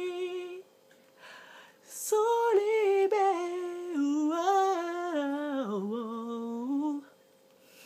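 A man singing unaccompanied with no words: a held note that stops about half a second in, a short breath, then a wordless melodic phrase of sliding and held notes that ends about seven seconds in.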